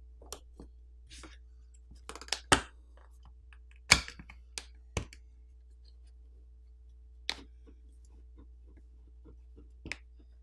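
Scattered sharp clicks and taps of a suction cup and a plastic pry pick working against a smartphone's plastic back plate as it is pried off its adhesive. There are about eight separate clicks, the loudest about two and a half and four seconds in.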